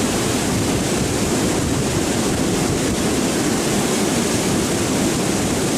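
Water rushing through the gates of a sluice dam in a steady, loud rush of fast current.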